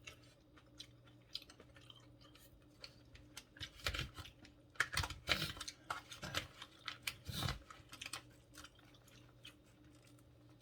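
A person chewing food close to the microphone: wet clicks and crunches, louder and thicker about halfway through.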